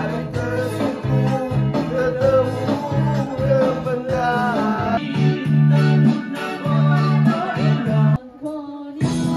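A man singing through a microphone over a karaoke backing track with guitar and bass. Near the end the sound drops out briefly for under a second, then the music returns.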